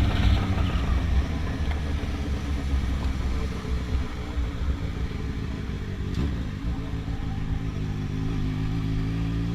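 Yamaha XJ6's 600 cc inline-four running through a 4-into-1 exhaust at low revs. Engine speed eases off at the start, holds steady, then climbs slowly near the end.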